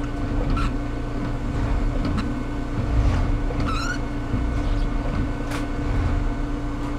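Diesel railcar idling at a standstill, a steady low rumble with a constant hum, while the windscreen wiper squeaks across the wet glass in short chirps about every second and a half.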